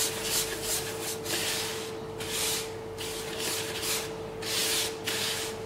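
A hand rubbing and stirring dry semolina mix in a plastic bowl, a swishing that comes in uneven strokes about once or twice a second.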